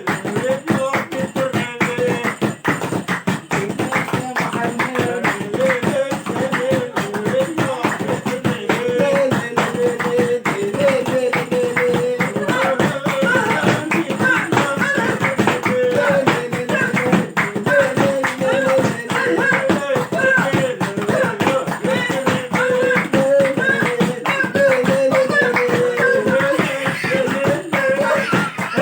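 Moroccan Rakba folk music: voices sing a repeated melody over fast hand clapping and percussion.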